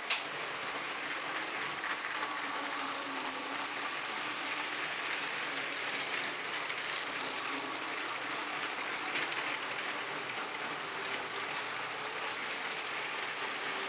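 Motorized Lego trains running on plastic Lego track, a steady rattle of wheels over the track, with one sharp click right at the start.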